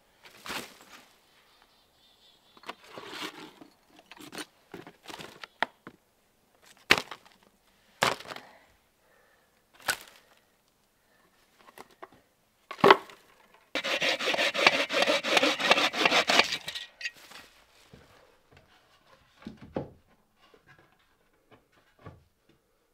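Wood and scrap debris knocking and clattering as it is pulled out from under a cabin floor and tossed aside. A little past halfway there are about three seconds of continuous rasping, scraping.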